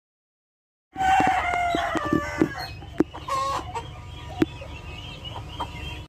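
A rooster crows once, a long call falling slightly in pitch, starting about a second in, followed by shorter, quieter clucking calls and two sharp clicks.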